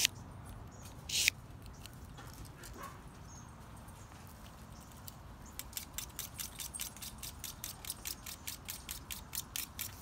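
A stainless pocket-knife blade drawn twice through a handheld pull-through sharpener, two short harsh scrapes at the start and about a second in, grinding metal off to form a new edge. About halfway through, a fast, even light jingling sets in, about five clicks a second.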